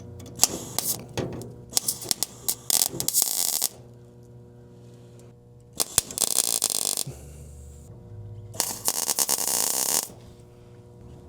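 MIG welder tacking a sheet-metal patch panel into the body: three bursts of crackling arc, the first about three seconds long, then two shorter ones, with pauses between.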